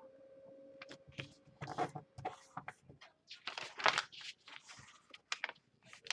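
A sheet of origami paper rustling and crinkling in short, irregular bursts as hands fold and crease it. The loudest rustle comes about four seconds in, as the sheet is opened out flat.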